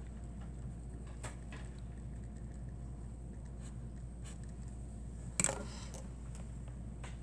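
Faint scratching and tapping of a marker writing on a textbook page over a low steady hum, then one sharp clack about five and a half seconds in, the loudest sound.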